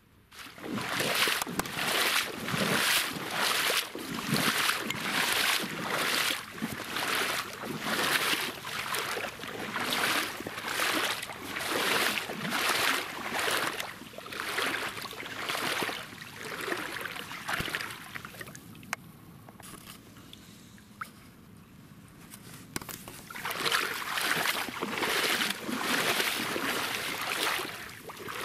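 Water sloshing and splashing in a steady rhythm, about three strokes every two seconds, as someone moves through it; it eases off for a few seconds after the middle and then picks up again.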